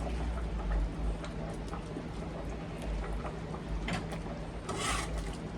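Kitchen handling noises as food containers and dishes are moved and set out: scattered small clicks and knocks, with a short rustle near the end, over a steady low hum.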